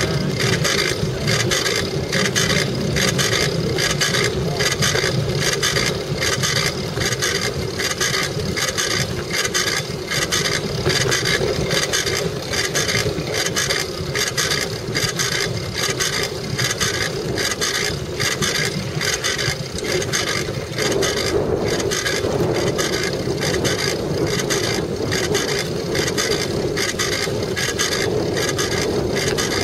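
Wind buffeting and rattle on a bike-mounted camera riding over the playa, a continuous rumbling noise with an even, rhythmic ticking over it.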